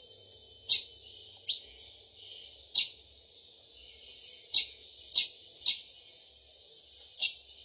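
Bird-lure recording of kutilang sutra calls: short, sharp high chirps, seven of them at uneven intervals, over a steady high hiss.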